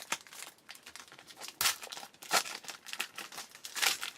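Baseball card pack wrapper being torn open and crinkled, in irregular crackles with a few louder rips.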